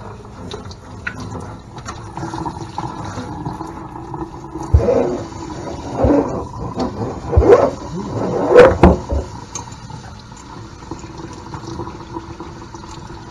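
Kitchen tap water running from a pull-down sprayer, splashing through wet dreadlocks into a stainless-steel sink, with several louder splashes and thumps in the middle.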